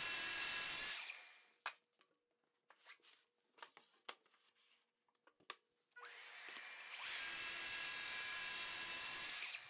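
Track saw cutting through a plywood sheet, stopping about a second in; a few light knocks and clicks as the cut piece is moved; then the saw starts again about six seconds in for a second crosscut, stopping just before the end.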